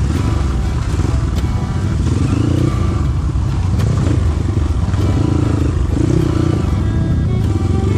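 Trail motorcycle engine running under way, its pitch rising and falling with the throttle, with a few sharp knocks and some clatter.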